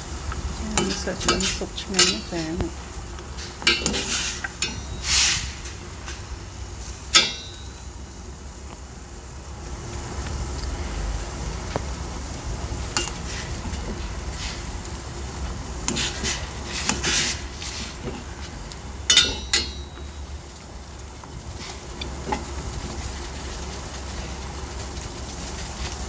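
Metal spoon stirring in a stainless steel pot of broth, with scattered sharp clinks and scrapes against the pot, the loudest a little after 7 seconds in and twice near 19 seconds, over a steady low hum.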